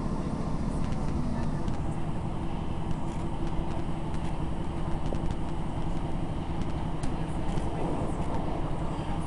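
Diesel passenger train running, heard from inside the carriage: a steady rumble with a low engine hum and occasional light clicks.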